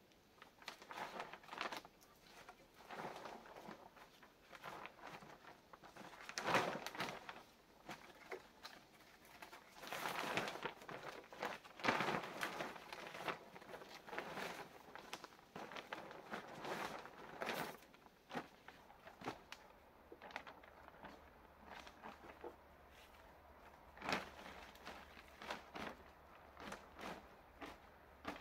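Clear plastic sheeting rustling and crinkling in irregular bursts as it is spread and pulled over a roof frame of wooden poles.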